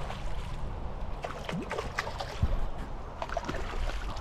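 A hooked American shad splashing and thrashing at the surface as it is reeled through shallow water to the bank, in a run of short, scattered splashes over a steady low rumble.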